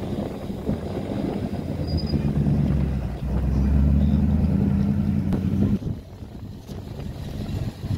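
Engine of a classic Holden Monaro coupe driving slowly past, a deep, steady note that grows louder as the car passes. About six seconds in it drops away abruptly, and another classic car's engine is heard approaching near the end.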